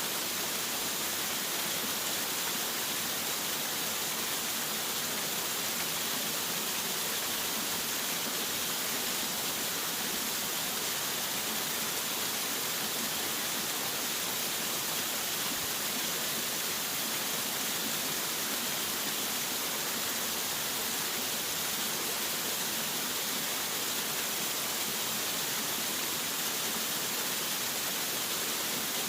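Waterfall: a steady, unbroken rush of falling water, bright and hissing.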